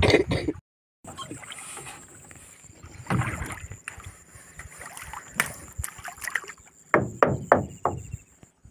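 Water splashing and lapping at the side of a small wooden boat as a hooked fish is hauled up to the surface on a hand line, with a quick run of sharp splashes near the end as the fish thrashes.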